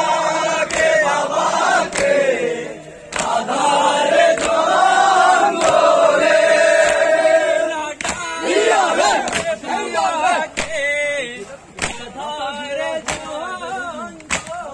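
A crowd of men chanting a mourning lament in unison while beating their chests in time (matam), the sharp slaps of hands on chests falling about once a second. The chanting is fullest in the first half and breaks into looser, more scattered voices in the second half.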